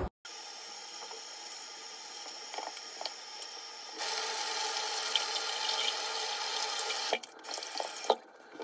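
Bathroom tap running into a sink, the water splashing over hands and a wrist being rinsed. The stream gets louder about four seconds in and stops after about seven seconds, followed by a few small knocks and splashes at the basin.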